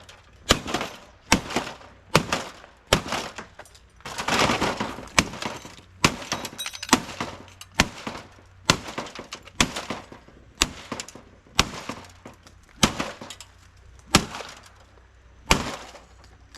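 Repeated hard blows smashing the plastic casing and circuit boards of an LG TV, about one strike a second, each with cracking and breaking. There is a longer spell of crunching and breaking about four seconds in.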